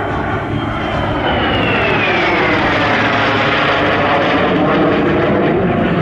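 Fouga Magister jet trainer's twin Turbomeca Marboré turbojets running loud, a high turbine whine over a steady rushing jet noise. Between one and three seconds in, the whine falls steadily in pitch as the jet flies past.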